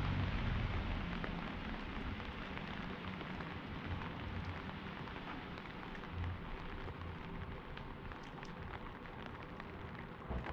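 Steady hiss of light rain and water dripping on a wet city street, with fine scattered ticks of drops. A low rumble at the start fades away over the first few seconds.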